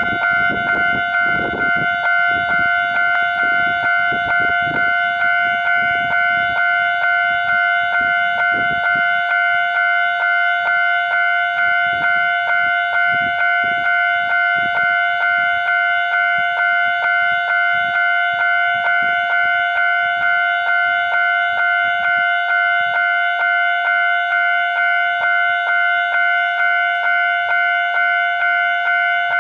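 Japanese railway level-crossing alarm sounding its electronic "kan-kan" warning, a loud ringing tone pulsing steadily over and over. This is the signal that a train is approaching the crossing.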